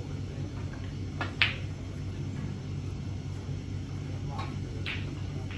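Snooker balls clicking on the table: a pair of sharp clicks about a second and a half in, the second the loudest, and two fainter clicks near the end, over a steady low hum.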